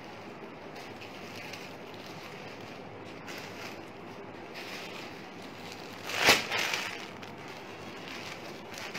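Steady room noise. About six seconds in comes one short, loud burst of handling noise, followed by a few softer ones.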